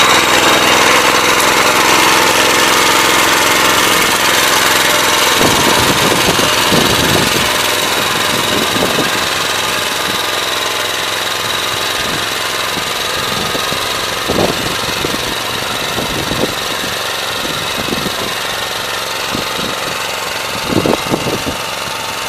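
Motor Sich walk-behind tractor's engine running steadily under load as it pulls a PN-1 single-furrow plough through the soil on its own, slowly fading as it moves away. A few short knocks come through in the second half.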